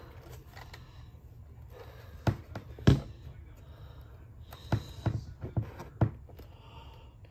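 About six sharp plastic clicks and knocks, a few seconds in, as a screwdriver pushes and levers the cassette door against a Cricket talking doll's plastic body, trying to snap its tabs into place.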